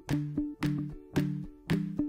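Background music: strummed guitar over a steady beat, about two strokes a second.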